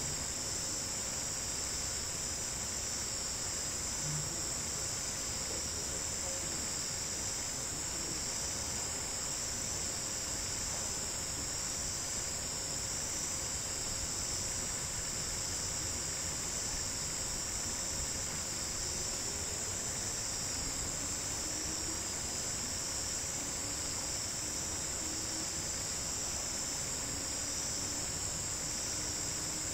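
Steady chorus of crickets, a dense high trilling that runs on without a break, with a faint low hum beneath it.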